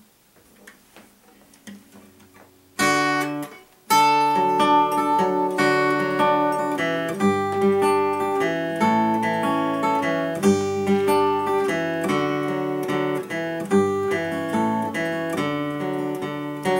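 Acoustic guitar: faint handling knocks as it is settled into place, a single strummed chord about three seconds in, then from about four seconds a steady strummed chord pattern.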